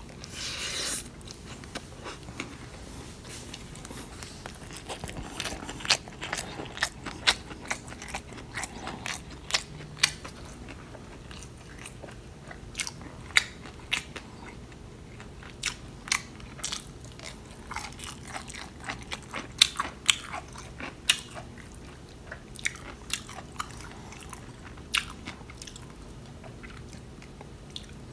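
Close-up eating sounds: a person chewing and crunching rice and side dishes, with many irregular sharp clicks and smacks.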